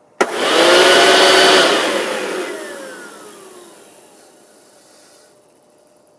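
Electric squirrel-cage blower feeding a home-built turbocharger gas turbine switched on with a click. It runs loud and steady for about a second and a half, then is cut off and winds down, its whine falling in pitch and fading over about three seconds.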